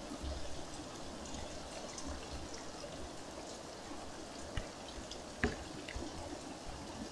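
Steady rain falling, with scattered drips and two sharper drop taps about four and a half and five and a half seconds in.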